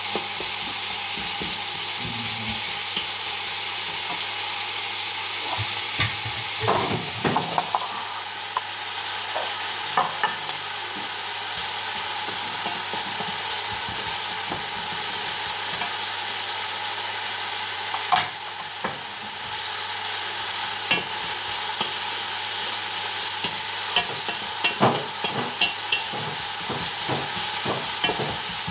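Chopped onions sizzling steadily as they fry in a pot, with a wooden spatula scraping and knocking against the pan now and then as they are stirred.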